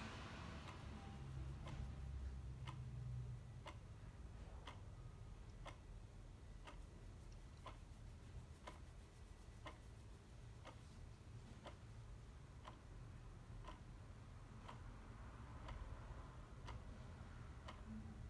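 A clock ticking faintly and evenly, about once a second, over a low steady rumble.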